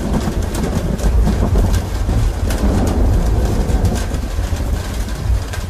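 Rain falling on a roof, with many single drops tapping, under a low rolling rumble of thunder that dies away near the end.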